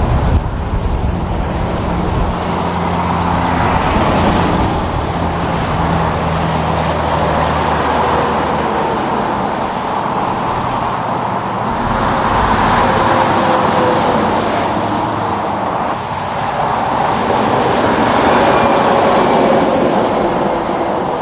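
Highway traffic passing: a steady wash of tyre and engine noise that swells several times as vehicles go by. Under the first several seconds there is a low engine drone from a heavy truck.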